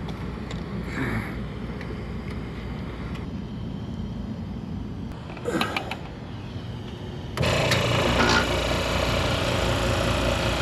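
Refrigerant recovery machine switching on suddenly about seven seconds in, then running steadily as it pulls the refrigerant out of the system. Before that there is a low hum with a few light clicks.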